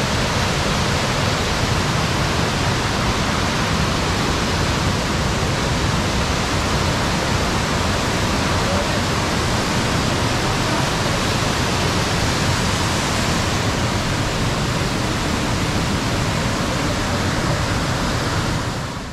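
A powerful waterfall heard close: a loud, steady rush of falling water that does not let up.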